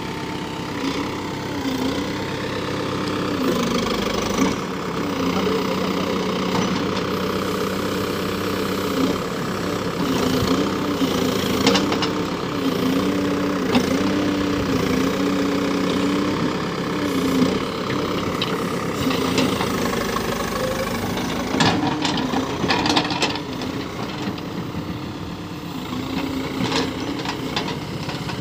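Diesel engine of a Cat 424B backhoe loader running at work, its pitch repeatedly dipping and rising again under load. Occasional short sharp knocks come from the machine, several close together near the end.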